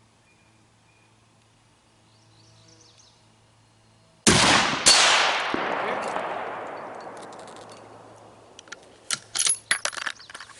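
A single rifle shot from a suppressed bolt-action rifle: a sudden loud report, a second sharp crack about half a second later, then a long echo rolling away over several seconds. Near the end come several short metallic clicks.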